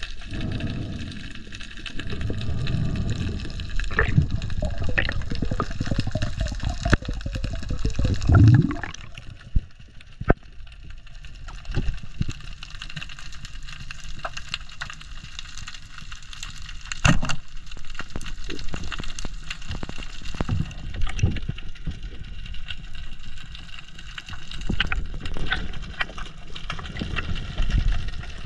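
Underwater sound of water rushing and sloshing around a spearfisher's camera, with scattered clicks and knocks. The rushing is loudest for the first nine seconds or so, then quieter, with a few sharp knocks standing out.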